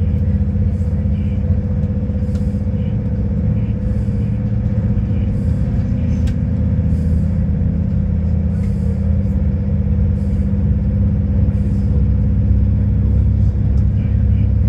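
Passenger train running at speed, heard from inside the carriage: a steady low rumble with a steady hum over it, and a faint hiss that comes back about every second and a half.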